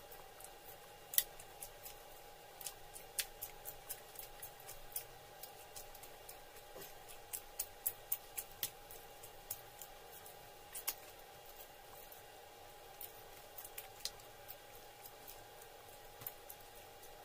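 Close-miked eating sounds of rice and curry eaten by hand: faint, irregular sharp clicks of chewing and mouth smacking, denser in the middle, over a faint steady hum.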